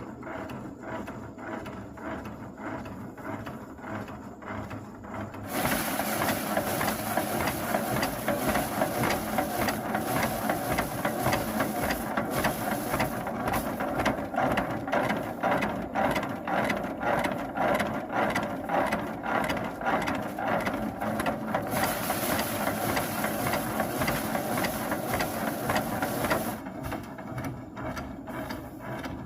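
Rice thresher running with a fast, steady mechanical clatter, becoming louder and harsher from about five seconds in until near the end.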